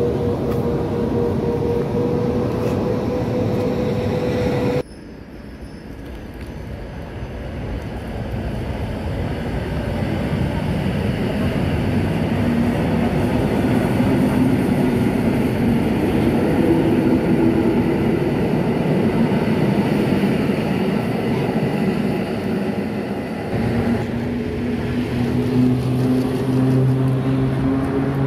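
Train running noise: a steady whine over a rumble. It breaks off abruptly about five seconds in, comes back quieter and builds over the next several seconds with a wavering whine, and changes again near the end.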